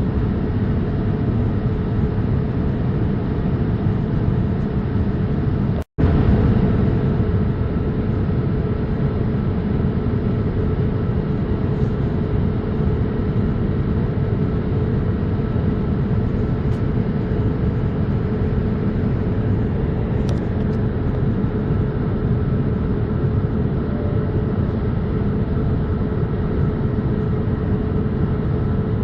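Steady cabin noise of a Boeing 787-8 airliner: a deep, even rush of engine and airflow with a constant hum over it. It cuts out for an instant about six seconds in, then resumes unchanged.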